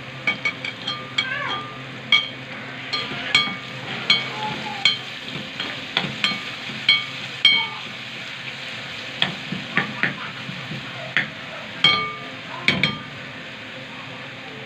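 Spoon stirring a pot of tomato-and-garlic sauce frying in oil: a steady sizzle with repeated sharp, ringing clinks of the spoon against the metal pot.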